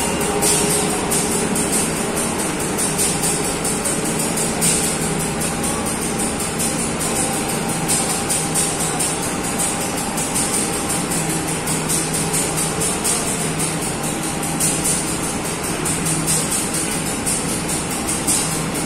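Passenger coaches of a departing train rolling slowly along the station platform, a steady running noise of wheels on rail, with music playing at the same time.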